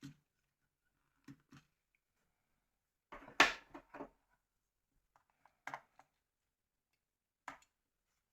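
Small hard clicks and taps of plastic phone parts being handled and fitted together during reassembly of a Nokia 3650's body shell. A few separate clicks, a louder cluster of knocks about three seconds in, then two single clicks near the end.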